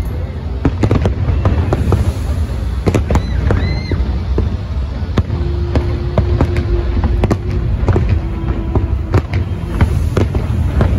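Fireworks display going off: a continuous run of bangs and crackles over a dense low rumble.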